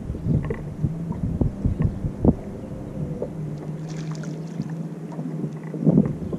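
Low, gusty rumble of wind on the microphone with small knocks. About four seconds in, a hooked crappie splashes briefly at the surface as it is reeled to the boat.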